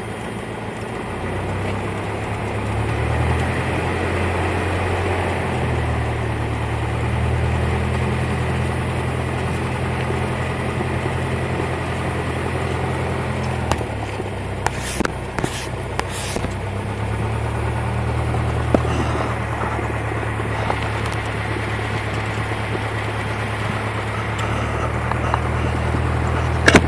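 Cessna 172's piston engine and propeller running at low power, a steady low drone whose speed steps up and down a few times, with a few light clicks about halfway through.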